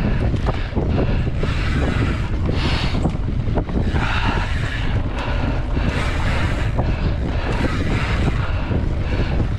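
Mountain bike ridden fast along a dirt trail: wind buffeting the microphone over a steady low rumble, with frequent short clicks and rattles from the bike and tyres.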